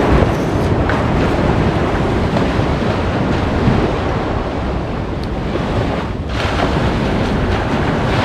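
Surf breaking on a sandy beach with wind buffeting the microphone, a steady rushing noise with a heavy low rumble that eases briefly a little after six seconds in.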